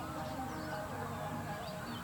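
A dense chorus of birds calling together: many overlapping wavering calls in the middle range, with quick high chirps over them.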